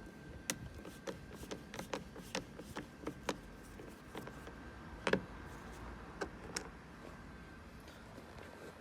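Scattered light clicks and taps of a screwdriver against the plastic interior door trim of a car as a screw is worked out, irregular rather than rhythmic, with one louder knock about five seconds in.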